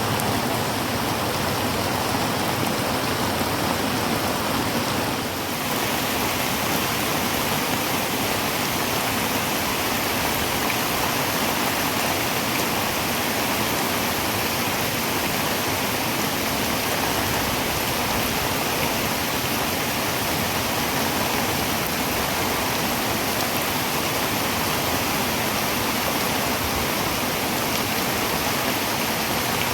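Heavy rain pouring on a tin roof: a steady, dense hiss that dips briefly about five seconds in.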